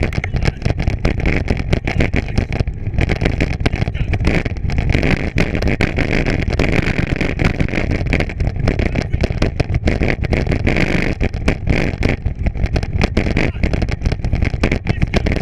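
Bicycle being ridden over rough ground: a dense, continuous rattle and clatter over a steady low rumble.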